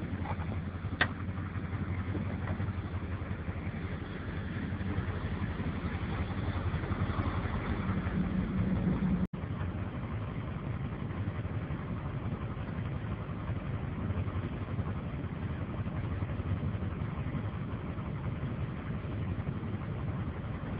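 Tow truck's engine idling steadily, with a single click about a second in.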